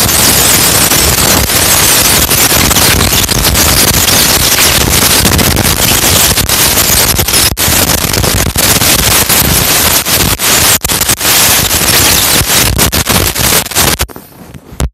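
Loud, dense crackling and rustling handling noise from a camera's microphone being pressed and rubbed as a sleeper rolls over onto the camera. It cuts off abruptly to near quiet about a second before the end.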